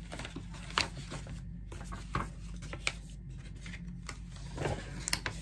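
Paper being handled: sheets and a booklet shuffled and leafed through, giving scattered rustles and light taps over a low steady hum.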